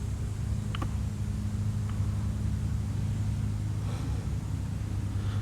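Vehicle engine idling steadily with a low rumble, with a couple of faint clicks about one and two seconds in.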